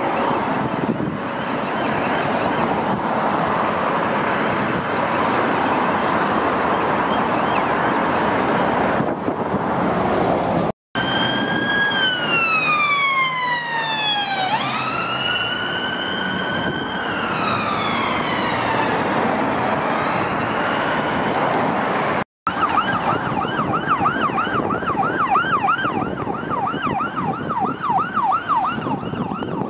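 Police car sirens on an emergency response, heard over road traffic across three cuts: first a faint distant siren under traffic noise, then a single slow wail sweeping down and up as a marked police car passes close by, then a fast yelp warbling several times a second.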